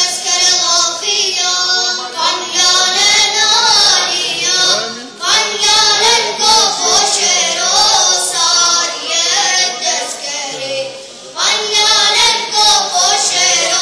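A high voice singing an unaccompanied chant-like melody in long phrases, with short breaks about five seconds in and again near the end.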